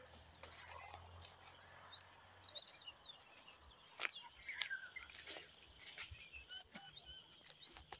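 Birds chirping in many short, quick calls over a steady high-pitched drone that breaks off briefly about two thirds of the way through, with a few faint clicks.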